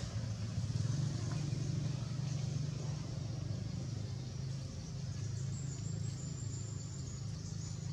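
A steady low motor-like hum with an even background hiss, and a faint thin high tone from about five and a half seconds in until near the end.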